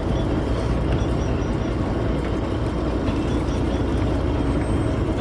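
Mechanised fishing boat's engine running steadily with a constant low drone.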